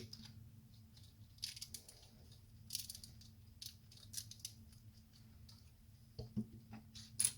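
Faint clicking and rattling of LEGO plastic pieces being handled and pressed onto a build, a few scattered short clicks with a strong one near the end.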